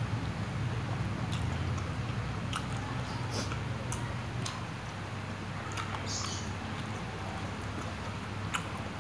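Mouth sounds of chewing fried instant noodles and spicy meatballs: scattered wet clicks and smacks at irregular moments, over a steady low hum.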